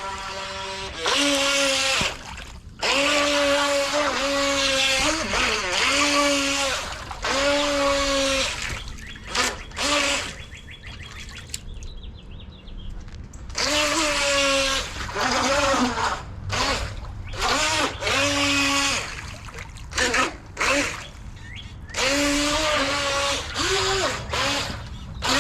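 Small electric motor of a toy RC speedboat whining in repeated throttle bursts of a second or two, holding a steady pitch and then bending as the throttle is let off, with short pauses between bursts.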